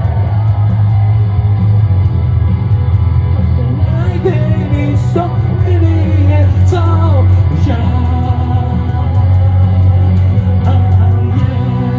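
Rock song: a man singing with amplified electric guitar chords underneath.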